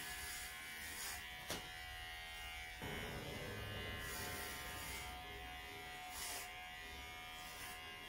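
Cordless battery-powered pet hair clippers running with a steady buzz while clipping a small dog's coat.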